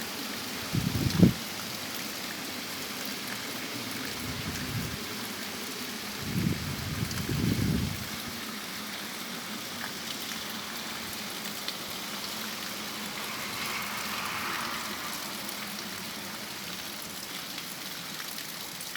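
Heavy rain falling in a steady hiss, with gusts of strong wind rumbling on the microphone about a second in and again around six to eight seconds.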